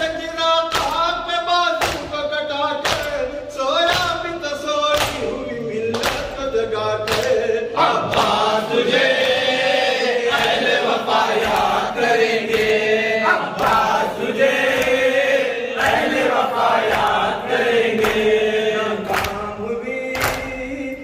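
Men's voices singing a nauha lament, a lead voice through a microphone with the group joining in. A steady beat of open-hand strikes on chests (matam) keeps time, a little under two a second.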